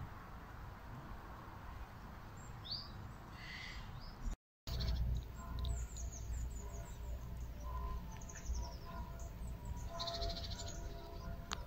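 Small birds chirping and twittering in short high calls, with a quick trill in the second half and a low rumble underneath. The sound drops out completely for a moment about four and a half seconds in.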